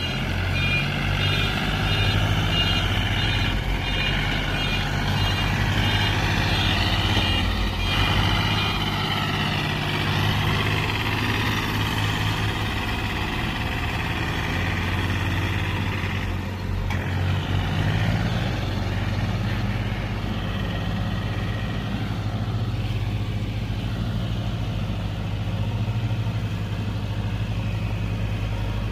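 Mahindra 235 tractor's diesel engine running steadily under load as it pulls a fully loaded trolley.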